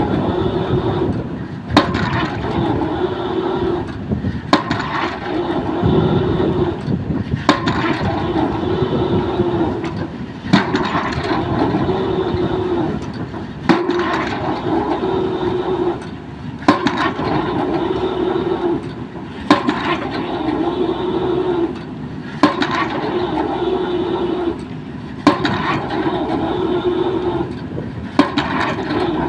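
Excavator drop hammer driving a pile: a sharp blow about every three seconds, ten in all, with the excavator's engine and hydraulics humming steadily between blows as the hammer is raised again.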